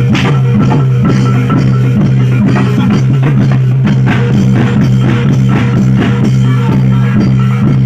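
Loud live reog and jaran dor ensemble music: drums struck in a quick, driving rhythm over a steady low droning tone.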